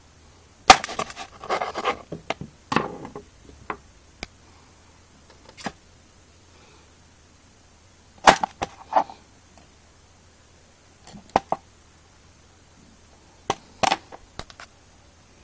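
Kitchen knife chopping through raw carrots onto a cutting board: groups of sharp chops, a cluster in the first few seconds, another around eight to nine seconds, a pair near eleven seconds and a few more near the end.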